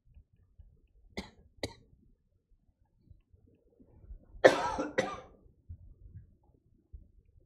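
A person coughing twice in quick succession about halfway through, the first cough the louder, after two short faint clicks.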